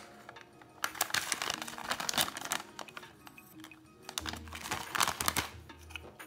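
Plastic snack-style packet of rice palada crinkling as it is handled, in two bouts, over background music; a low bass line comes into the music about four seconds in.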